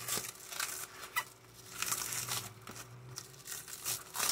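Clear plastic stretch wrap crinkling and tearing in irregular bursts as it is peeled off a cardboard box.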